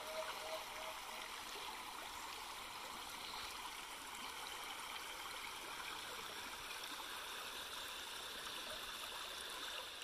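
Shallow creek water running over flat rock, a faint steady rippling.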